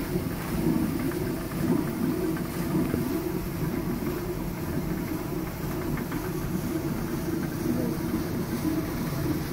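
Water-powered millstone of a panchakki mill turning and grinding, a steady low rumble with a fast rough flutter.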